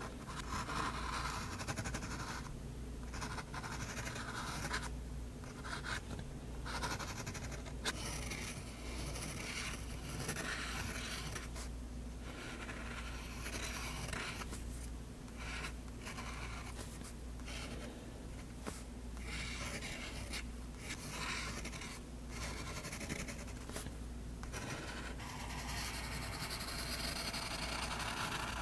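Faber-Castell Hexo fountain pen with an extra-fine nib scratching across drawing paper in many short strokes, broken by brief pauses as the pen lifts.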